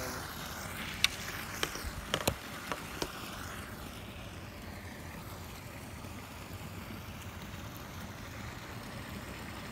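Close handling noise: a handful of short sharp clicks and taps in the first three seconds, the loudest about a second in, over a steady hiss.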